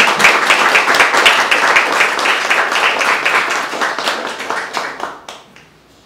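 Audience applauding to welcome a speaker, the clapping dying away about five seconds in.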